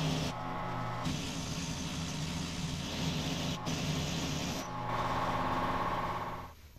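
Pneumatic impact wrench hammering on a red-Loctited piston nut through a 1-13/16-inch socket, with brief breaks in the hammering. It stops near the end as the nut comes off the tilt cylinder rod.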